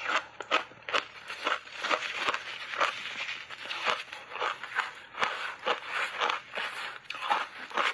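Shaved ice coated in matcha powder being crunched between the teeth, close to a clip-on microphone: a steady run of crisp crunches, about three a second.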